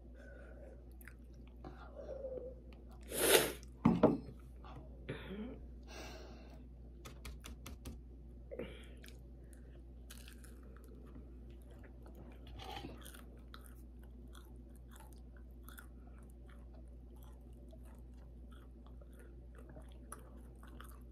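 A person chewing crispy fried pork chop, with crunching and wet mouth sounds; a few loud, sharp mouth noises about three to four seconds in, then quieter chewing with small clicks.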